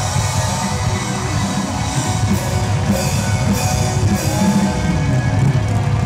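Loud live concert music played over a stage PA system, with a rock-style band sound of drums and guitar.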